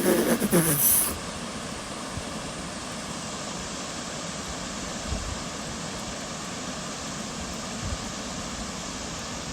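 Steady rush of water pouring over a heavily flowing dam spillway. In the first second there is a brief louder burst with a falling pitched sound.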